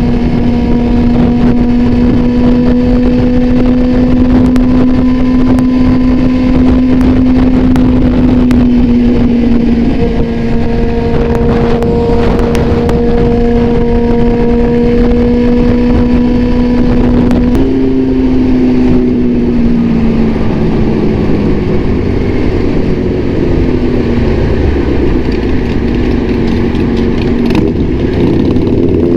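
Sport motorcycle with an Austin Racing aftermarket exhaust riding at highway speed, the engine holding a steady high note over wind and road noise. About two-thirds of the way through, the pitch jumps up and then falls away as the bike slows, rising again near the end.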